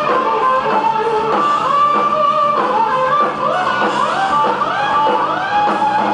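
Live rock band led by an electric guitar solo of sustained notes that slide and bend up and down in pitch.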